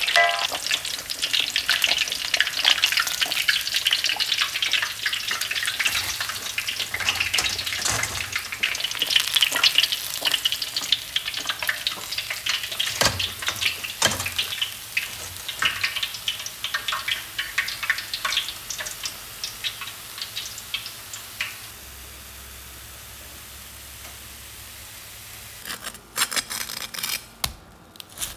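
Chunks of pork belly deep-frying in hot oil in a wok, a dense crackling sizzle that fades out after about fifteen to twenty seconds. Near the end, a knife crunches through the crisp crackling skin in a quick run of cracks.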